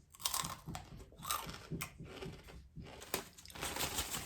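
Crinkling of a big chip bag and crunching of sugar-coated Takis being handled, a run of irregular crackles.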